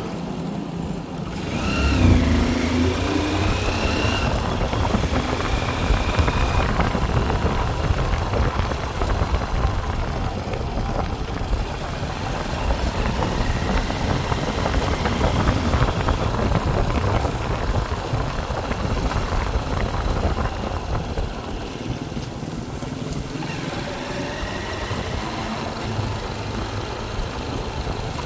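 Steady vehicle engine and road noise, with a louder burst about two seconds in.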